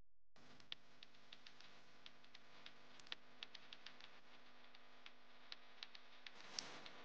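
Faint crackling of dry conifer needles and twigs as a hand brushes through the forest-floor duff: scattered small clicks, with a slightly louder rustle near the end.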